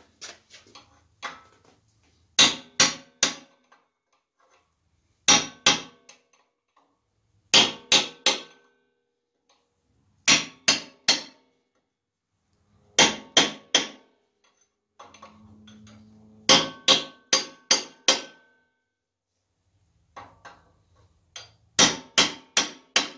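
Hammer striking a steel punch set against the bent metal shell of an upper trailing arm bushing on a rear axle housing, tapping it down. The ringing metal-on-metal blows come in quick groups of three to six, a new group every two to three seconds.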